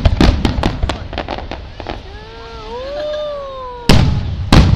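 Aerial fireworks display: a quick run of sharp crackling pops, then a wavering whistle-like tone that rises and falls, then two heavy booms of shells bursting about half a second apart near the end.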